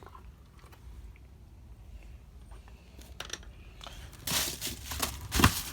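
Packaging being handled: a quiet stretch, then from about four seconds in a burst of crinkling and rustling with a few sharp clicks.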